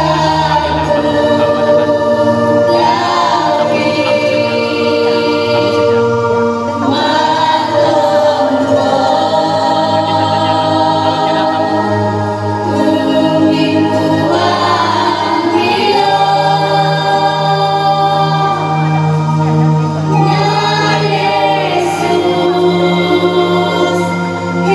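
Christian worship song: a choir singing in harmony over sustained instrumental backing with a steady low bass.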